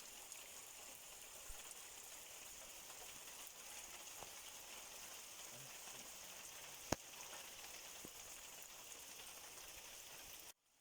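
Steady fine hiss of rain falling, with one sharp click about seven seconds in.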